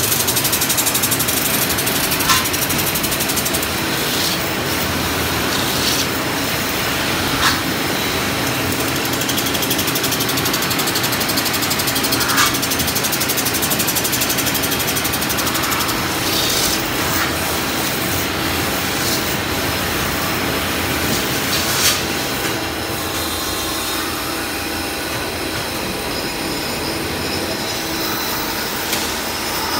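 CNC metal-spinning machine forming a stainless steel (SUS 304) workpiece: the spinning part and forming roller give a steady loud running noise with a strong high hiss, broken by occasional sharp ticks.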